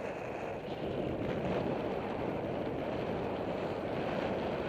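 Steady wind rushing over the microphone of a camera on a road bike descending at speed.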